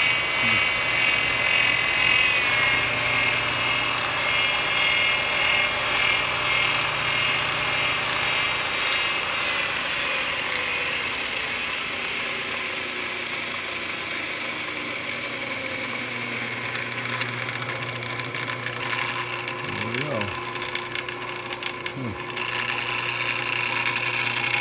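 Jet JWL-1236 wood lathe running with its Reeves variable-speed drive exposed: a steady electric-motor hum with a whine from the belt and pulleys. The pitch slides down over several seconds as the drive speed changes, then climbs again, with a spell of clicking near the end.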